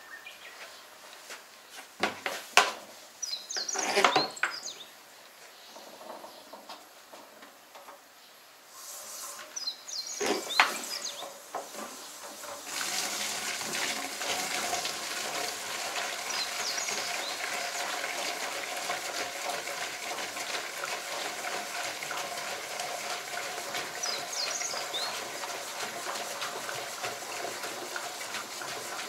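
Fuel running from a drum pump's hose into a plastic jerrycan: a few knocks and clicks in the first half, then a steady rush of liquid filling the can from about halfway through. A bird chirps now and then.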